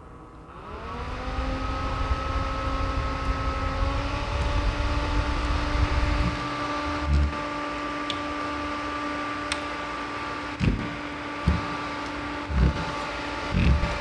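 Mini desk air-cooler fan being switched up in speed: its motor hum rises in pitch and loudness about a second in, steps up again about four seconds in, then runs steady over the rush of air. Paper streamers flap in the airflow, and a few low thumps come in the second half as the unit is handled.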